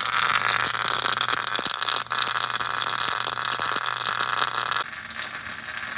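Portable SFX-4000B EDM machine spark-eroding a broken quarter-inch NPT tap: a dense, rapid crackle over a steady low hum. About five seconds in, the hum stops and the crackle gets a little quieter.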